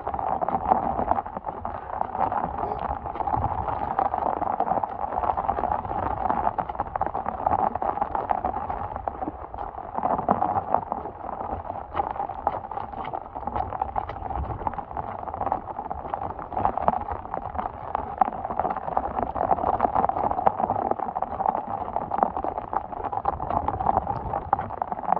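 Heavy monsoon rain and storm runoff running over saturated ground make a steady noise. Footsteps splash and squelch through mud and standing water over it, with a low rumble of wind and handling on the microphone.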